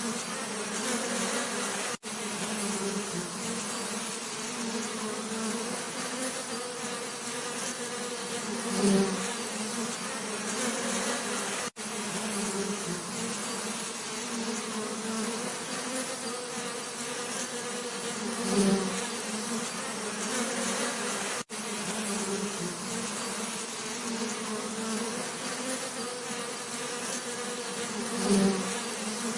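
Bees buzzing in a steady, continuous drone. The buzz swells loudly three times, about ten seconds apart, and breaks off for an instant three times.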